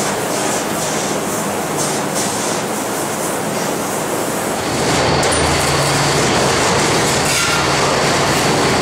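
Oxy-fuel cutting torch hissing and crackling as it cuts the steel fan housing. About five seconds in, the noise turns into a louder, steady machine hum with a thin high whine.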